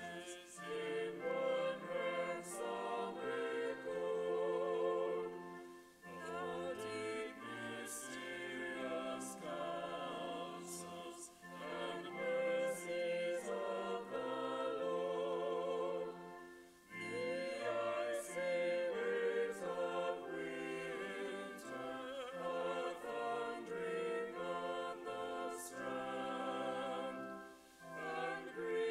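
A small choir singing a hymn verse in long phrases, with short breaks between lines about six and sixteen seconds in and again near the end.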